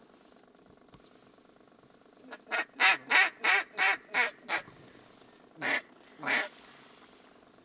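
Duck quacking in the mallard pattern: a run of about seven quacks, roughly three a second, getting quieter as they go, then two more single quacks.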